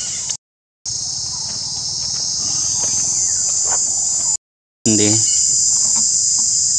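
Steady high-pitched drone of an insect chorus. It cuts out completely twice, for about half a second each time.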